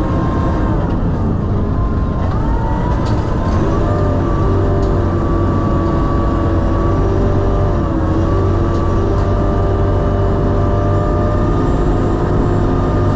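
Sherp amphibious ATV's diesel engine running steadily under way, its note falling and rising a few times as the engine speed changes.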